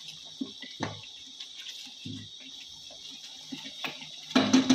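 Wooden spatula stirring thick, wet chicken masala in a nonstick pot: scattered soft scrapes and wet squelches, busier and louder near the end.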